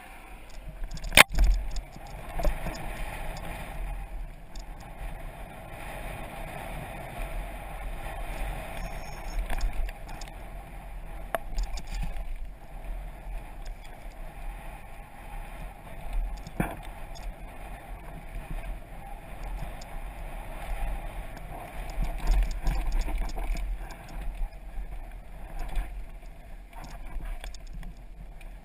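Mountain bike descending a rough dirt trail, heard from a helmet-mounted camera: wind buffeting the microphone over the rolling tyres and the bike's rattle, with sharp knocks from bumps about a second in and again around the middle.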